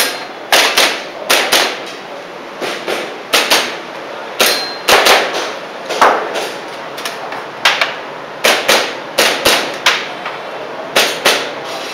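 Airsoft pistol being fired through a practical-shooting course of fire: sharp shots, mostly in quick pairs (double taps), each with a short metallic ring after it.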